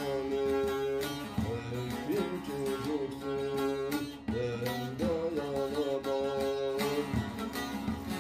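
Bağlama (saz), a long-necked Turkish lute, playing a Turkish folk tune with continuous melodic notes that bend and slide.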